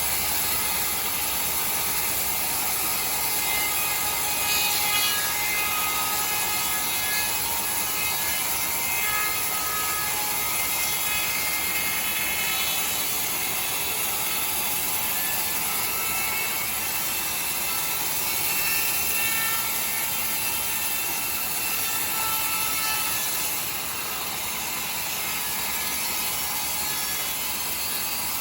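Sawmill saw running steadily through timber: a constant loud machine noise with faint high whistling tones over it, dipping slightly in level near the end.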